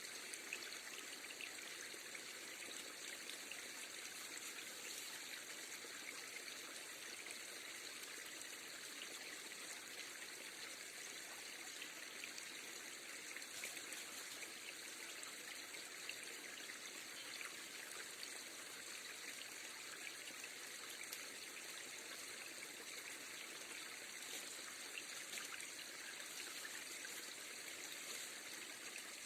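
Steady rush of river water flowing over a shallow bed, with faint scattered ticks.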